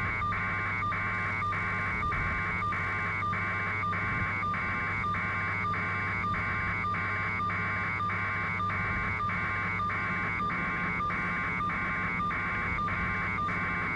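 A pulsing electronic buzz repeating in an even rhythm, roughly one and a half pulses a second, over a steady low hum.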